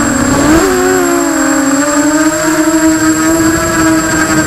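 Emax Nighthawk Pro 280 racing quadcopter's brushless motors and propellers whining in flight, picked up by the onboard camera. The pitch dips, then rises sharply about half a second in, then settles and holds steady.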